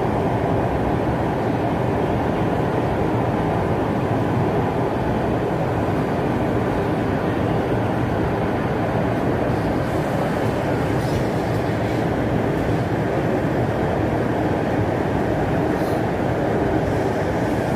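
Steady running noise of a BEML-built Mumbai Metro train, heard from inside the carriage, with a faint steady whine.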